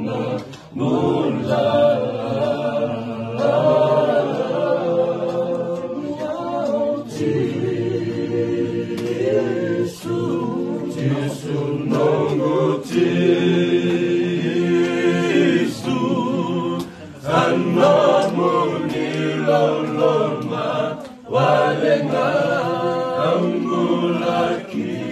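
A group of men singing a Fijian hymn unaccompanied in several-part harmony, with brief breaks between phrases.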